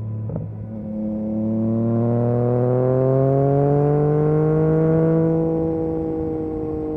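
2022 Yamaha MT-09 SP's inline three-cylinder engine through an Akrapovic exhaust, with a short click near the start. The revs then climb steadily under acceleration for about four seconds and ease off a little near the end.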